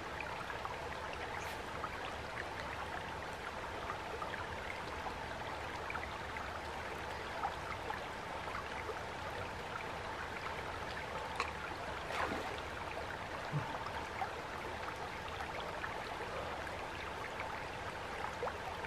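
Steady soft rush of a shallow creek flowing over stones, with a few faint ticks here and there.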